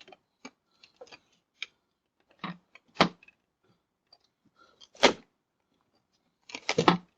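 A door being worked: scattered clicks and rattles, with heavier knocks about three and five seconds in and a quick cluster of them near the end.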